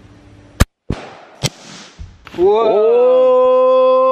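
An AR-15 rifle firing a .223 round: one sharp crack about half a second in, followed within the next second by two fainter sharp cracks. Then a man's long, drawn-out 'whoa'.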